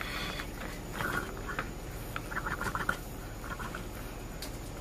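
Kittens licking and smacking at wet treat paste on a plastic plate: faint, quick wet clicks in several short runs.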